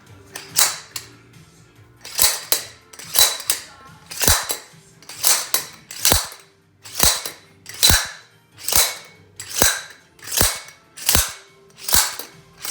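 Slide-hammer blind bearing puller being worked over and over, a sharp metallic clack about once a second, some strokes doubled, as it jerks a stuck front wheel bearing out of an aluminium ATV hub.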